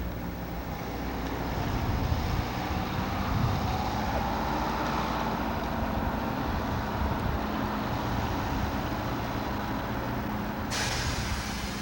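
Bus engine running steadily, with a sudden burst of hiss near the end.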